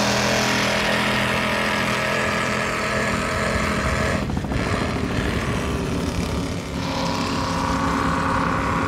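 36-foot Cigarette Gladiator powerboat running at speed, its engines giving a steady drone over a constant rushing noise. A higher-pitched drone comes in about seven seconds in.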